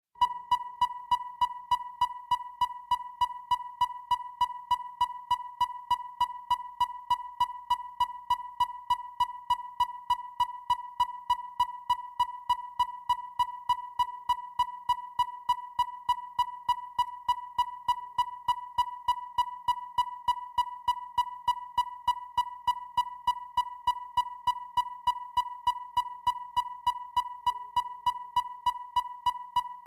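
Depth finder (echo sounder) running: a steady high-pitched tone with sharp clicks repeating evenly, about three a second.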